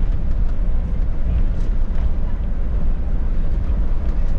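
Steady low rumble of an intercity coach, without a clear change or distinct event.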